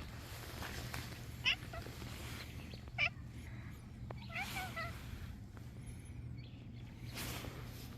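Cats meowing: two short meows about a second and a half apart, then a longer meow that falls in pitch, over a steady low hum.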